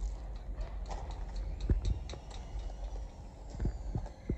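Footsteps on gravel, a handful of uneven steps, over a steady low rumble.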